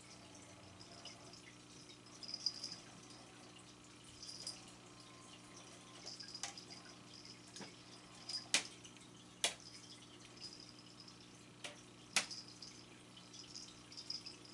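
Scattered sharp taps and clicks as two cats swat and pounce at a toy on a kitchen floor, with a cluster of the loudest taps in the second half. A faint steady low hum runs underneath.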